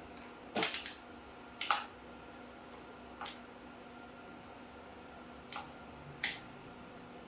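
Sharp metallic clicks of hand tools on the motorcycle's fork-clamp bolts: a quick run of about four just over half a second in, then four single clicks spaced one to two seconds apart.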